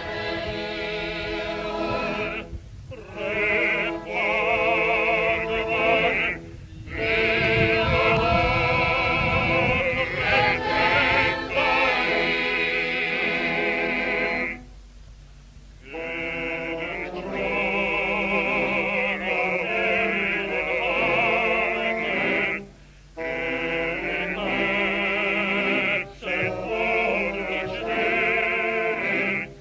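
A hymn sung in operatic style, the voices holding notes with strong vibrato, in phrases broken by short pauses, the longest about halfway through.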